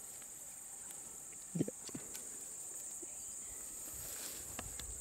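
Insects in dry grass making a continuous high-pitched buzzing trill, with a brief thump about a second and a half in and a few faint ticks.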